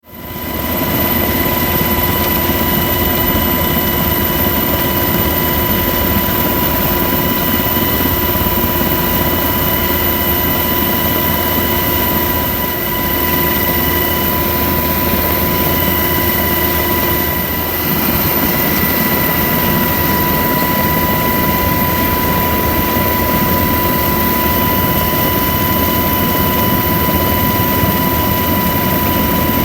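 Helicopter noise heard from on board in flight: a steady, loud rush of rotor and engine noise with several constant whining tones over it.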